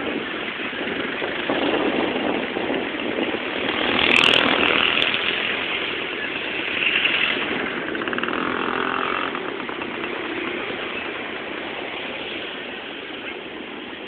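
Street noise with vehicle engines passing, swelling and fading several times, with a few sharp clicks about four seconds in.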